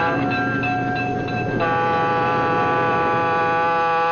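Locomotive air horn sounding a long, steady chord as a train passes; the chord shifts abruptly about a second and a half in.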